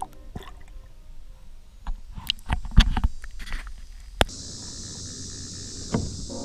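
Water splashing and knocks as a just-caught small bass is handled at the surface beside a kayak, with the camera dipping under the water and coming back out; several sharp knocks come near the middle. About two-thirds of the way in, a steady high hiss takes over.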